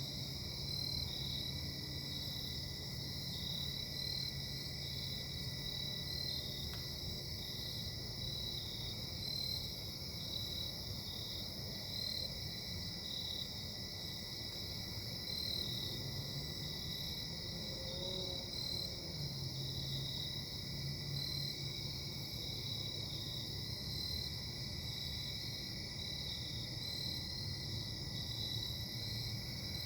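Steady low droning hum of distant industrial machinery, with a thin steady tone above it, which the listener attributes to an engine with bad bearings. Crickets chirp in a steady, even rhythm over it.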